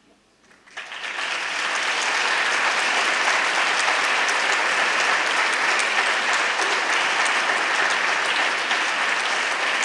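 Concert audience applauding: the clapping breaks out just under a second in, swells within about a second, then holds steady.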